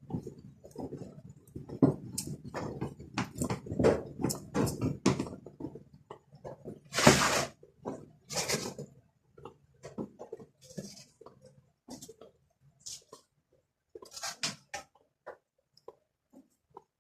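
Hands working on a washing machine with tools and parts: a quick run of clicks, knocks and rattles, with a louder scraping rustle about seven seconds in and again a second later, then scattered clicks.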